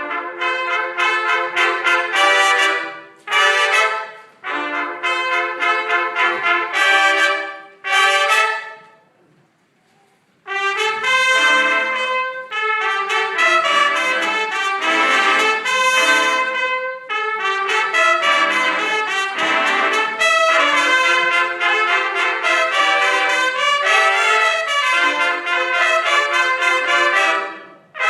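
Brass band playing loud sustained chords, trumpets and trombones, in short punchy phrases, stopping for about a second and a half near the middle and then playing one long unbroken passage until just before the end.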